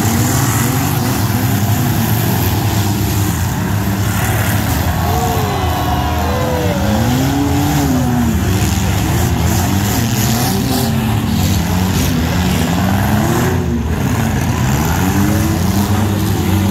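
Engines of several compact demolition-derby cars running together, their pitch rising and falling over and over as the drivers rev up and back off. Underneath is a steady low rumble.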